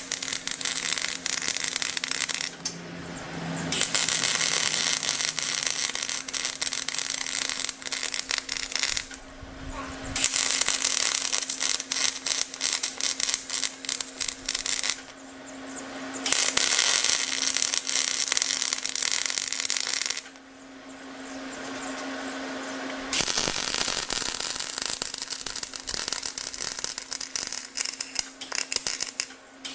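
Electric arc welding on heavy steel, the blade ball mount of a Caterpillar D5C dozer: the arc crackles steadily in five runs of about four to six seconds each, broken by short pauses between beads.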